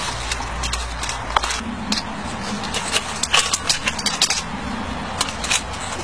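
Light metallic clicks and clinks from hands working the fittings and firebox opening of a miniature live-steam locomotive, with a quick cluster of them about halfway through.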